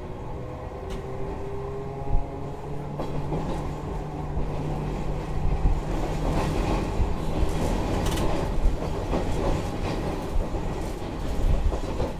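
Toyohashi Railway 3200-series streetcar running, heard from inside the car: a steady running hum for the first few seconds, then a rougher wheel-on-rail rumble with scattered knocks from about six seconds in.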